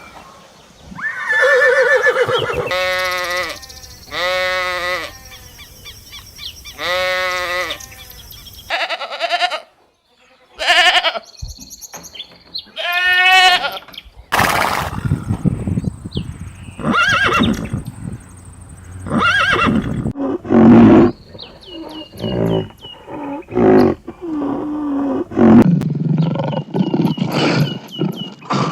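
A string of farm animal calls in short edited cuts: three similar calls with an arching pitch in the first eight seconds, then a run of shorter, varied calls and noises from different animals.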